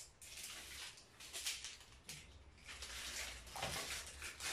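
Crinkly rustling of the plastic packaging on a tub of shisha tobacco as it is peeled and handled open, in several short bursts.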